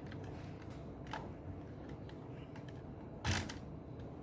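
Small handling noises over a steady low room hum: a few faint clicks and one short, louder clack about three seconds in.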